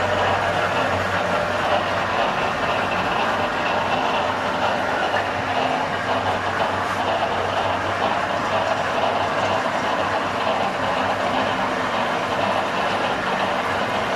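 Electric concrete pan mixer running, its paddles churning damp block material around the pan: a steady, dense churning noise over a low motor hum.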